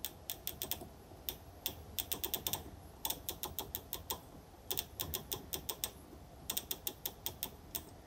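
Detent clicks from the right-hand rotary navigation dial of a Cocktail Audio X45 Pro music server as it is turned, in quick runs of several clicks with short pauses between. The reviewer finds that the clicks feel random and don't match one click to one line on the screen.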